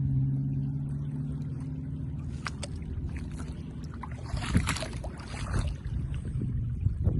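A vehicle engine hums steadily and fades away, then a rush of splashing water swells and dies off about halfway through. Low rumbling comes in near the end.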